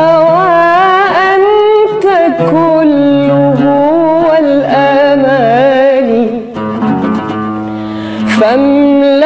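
A woman singing a long, ornamented Arabic vocal line with wavering pitch, accompanied by a plucked oud. The voice pauses for a moment about two-thirds of the way in, leaving the accompaniment quieter, and comes back near the end.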